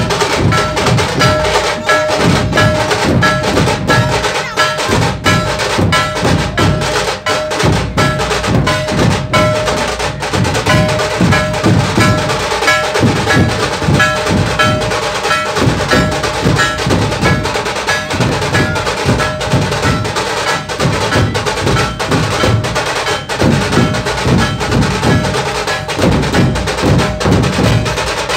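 Dhol barrel drums beaten with sticks in a loud, fast, unbroken rhythm, deep drum strokes mixed with sharp cracking hits.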